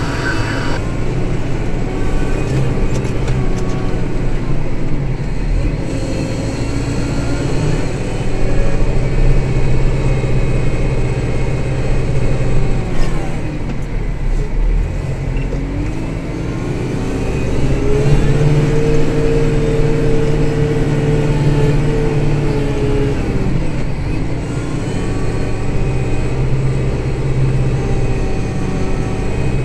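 Kubota Grand L5740 tractor's diesel engine working under load, its pitch rising and falling as it revs up and settles back several times, with a long high-revving stretch about two-thirds of the way through.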